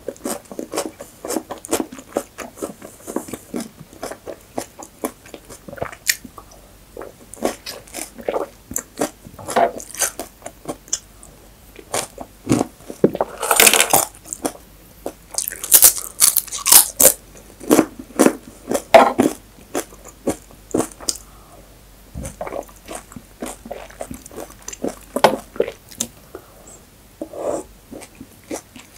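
Close-miked chewing and crunching of abdoogh khiar, a cold yogurt-and-cucumber soup with dried bread, walnuts and radish, eaten by the spoonful. It is a steady run of moist crackly chews, with louder crunchy bursts about 14 seconds in and again around 16 to 17 seconds.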